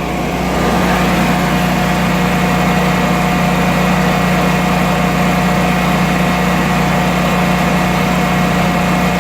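Generac 22 kW home standby generator running steadily at its governed 3600 RPM, a constant loud hum with no change in speed; the steady speed is what gives clean 60 Hz power.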